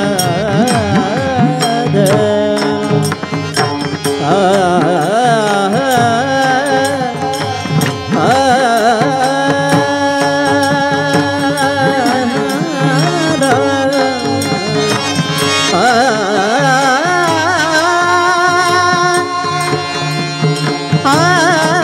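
Male voices singing a Marathi kirtan melody with long held notes, kept in time by a steady pattern of small brass taal hand cymbals and a mridang barrel drum.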